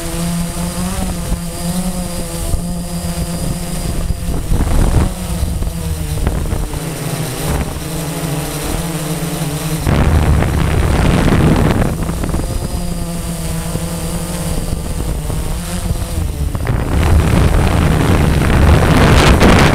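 Blade 350 QX quadcopter's electric motors and propellers whining in flight, the pitch shifting up and down as the motors change speed, heard from the camera on board. Wind noise on the microphone rushes over the motor sound about ten seconds in and again near the end.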